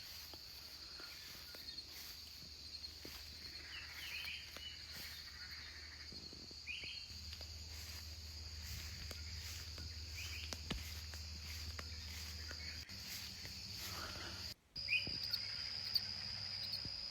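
Crickets: a steady high-pitched insect trill, with a few short bird chirps over it.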